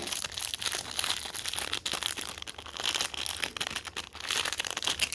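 Plastic packaging crinkling and crackling as it is handled and pulled open by hand: a dense, uneven run of small crackles that stops abruptly at the end.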